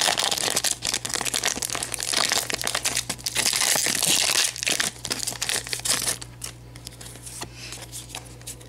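Foil Pokémon booster pack being torn open and crinkled between the fingers: a dense crackling rustle for about six seconds, then softer clicks and slides as the cards are drawn out of the wrapper.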